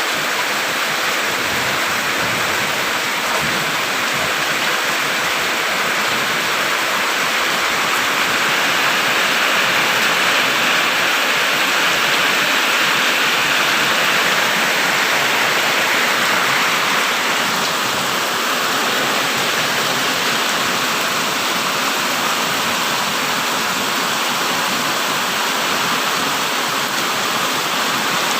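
Heavy rain falling steadily, a dense, even hiss with no separate drops or thunder standing out.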